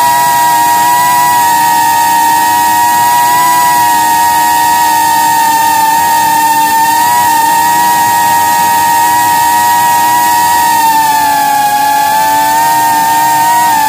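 Small multirotor drone's motors and propellers whining at a steady high pitch, several close tones beating against each other; the pitch sags and wavers a couple of seconds before the end.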